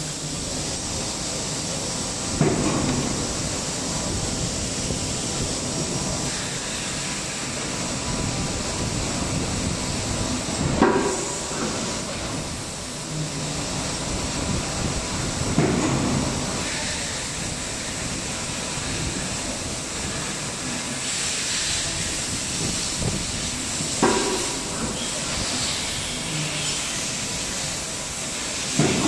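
Injection moulding machine running a multi-cavity bottle-cap mould: a steady mechanical noise with a hiss. A louder swell comes about every five to nine seconds as the machine cycles.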